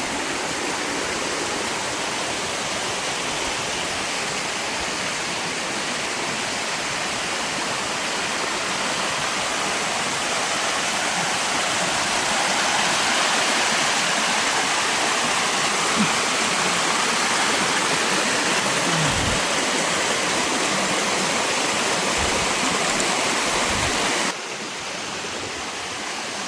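Waterfall on a mountain stream: a steady, loud rush of falling water, dropping suddenly to a quieter level near the end.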